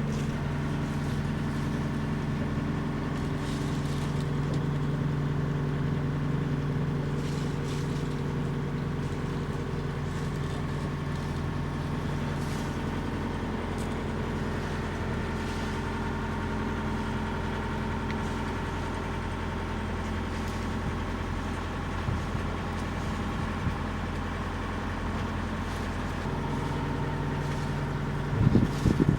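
Sailboat's auxiliary engine running steadily at a constant speed, a steady droning hum. A few short bumps near the end.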